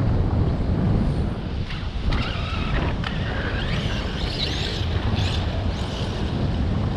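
Strong wind buffeting the microphone, with the brushless motor of an Arrma Kraton 8S RC truck whining up and down in pitch as it accelerates and slows several times from about two seconds in.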